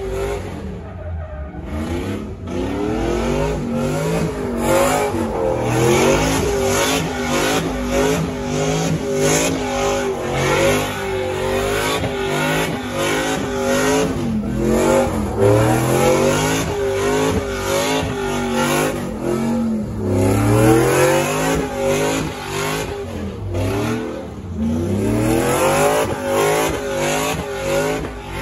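Pickup truck engine revving hard during a smoky burnout, doing donuts with its rear tyres spinning on the asphalt. The revs climb and drop over and over, with a rough tyre screech underneath.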